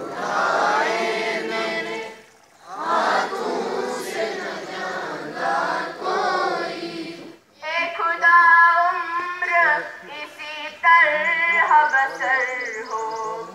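Schoolchildren singing together in unison, in long phrases broken by short pauses about two and seven seconds in.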